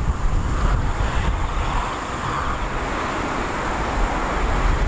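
Outdoor airfield ambience: wind buffeting the microphone with a heavy low rumble, over a steady broad hiss of distant airport noise and a thin steady high tone.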